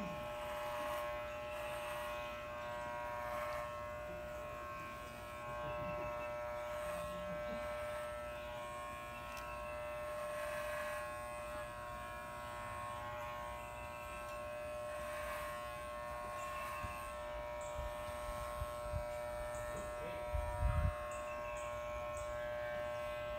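Corded electric hair clippers running with a steady buzz as they shave a head down to the scalp. A short low rumble comes near the end.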